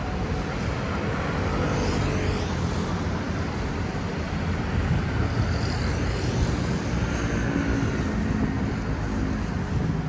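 Road traffic on a busy city street: cars and scooters passing with a steady rumble of engines and tyres.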